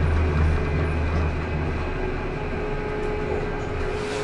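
Alstom Citadis Luas tram running along the track, heard from inside near the driver's cab: a steady hum from the running gear with wheel-on-rail noise. A deep low drone fades out about a second in.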